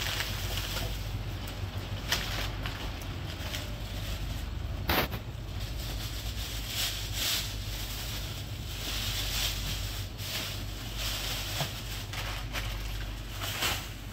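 Thin plastic shopping bags rustling and crinkling as groceries are packed, with a few sharp knocks of goods set down on the counter, over a steady low hum.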